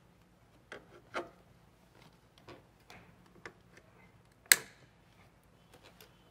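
Light scattered clicks, taps and rubs of a hand tool and fingers working at cables and the metal frame under a power recliner, with one sharp, louder click about four and a half seconds in.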